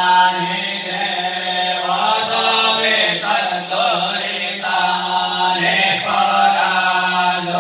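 Voices chanting Hindu mantras in a continuous recitation over a steady low hum.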